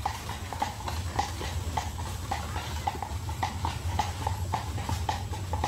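Carriage horse's hooves clip-clopping at a walk, a steady beat of about three hoof strikes a second, over a low rumble from the moving carriage.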